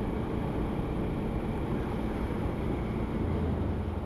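Motorcycle engine running steadily while riding, mixed with wind rumbling over the microphone.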